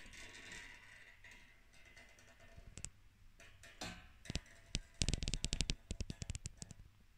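Hard plastic toy parts being handled, giving scattered clicks and taps, then a quick rattling run of clicks about five seconds in.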